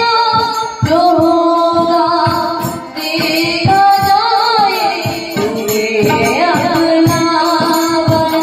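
A live female vocal sung into a stand microphone, with regular drum strokes and a steady held note underneath it.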